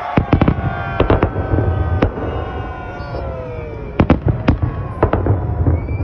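Aerial fireworks bursting overhead: about a dozen sharp bangs in uneven clusters, with long tones gliding slowly down in pitch between them.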